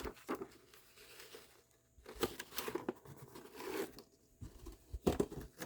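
Old folded paper manual being opened out and handled: paper rustling and crinkling in irregular bursts, at the start, through the middle and again near the end.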